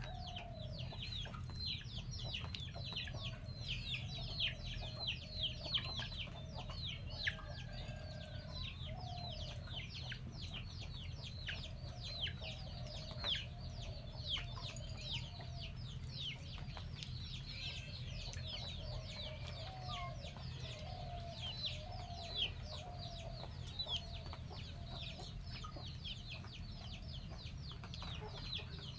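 A chicken clucking softly as it pecks about, with a dense run of short, high, falling chirps several times a second over a steady low hum.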